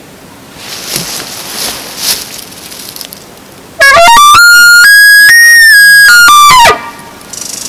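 Elk bugle call blown by a hunter: one loud whistling bugle that climbs steeply in pitch, holds a high shrill note for about three seconds, then drops away, imitating a bull elk's bugle.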